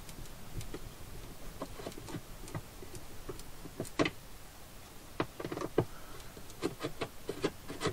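A screw being turned in by hand with a screwdriver into a smoke alarm mounting base on the ceiling, making irregular small clicks and scrapes. A few sharper ticks come about four seconds in and again over the last three seconds.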